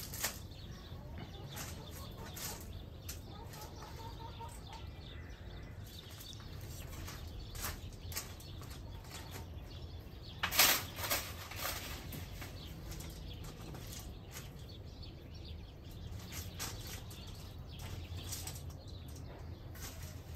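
Leaves and branches of a fruit tree rustling as a long pole shakes them to knock fruit down, with one loud rustle about ten seconds in and scattered smaller rustles and knocks around it.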